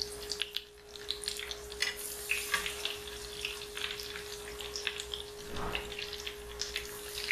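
White-bean fritters coated in breadcrumbs deep-frying in a small saucepan of hot oil: a steady sizzle with scattered pops and crackles, as a metal utensil turns them in the pan.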